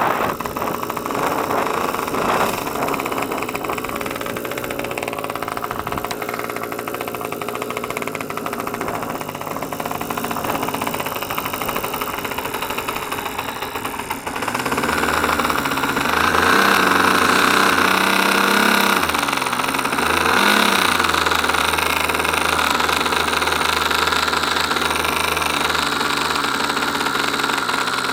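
Small 8cc two-stroke gasoline engine of an RC model airplane running steadily. It gets louder about halfway through, with its pitch shifting briefly a few seconds later.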